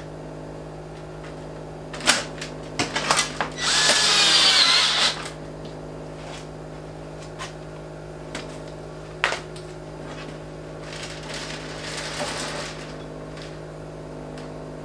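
Cordless drill driving a screw to fasten a swivel mount to a plywood seat base. One loud run of about a second and a half, its pitch rising as it goes, comes after a few clicks as the drill and screw are set in place. Scattered lighter clicks and knocks follow, over a steady low hum.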